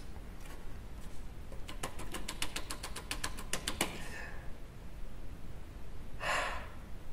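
A man laughing under his breath: a quick run of faint clicky pulses, followed by a couple of breathy exhales.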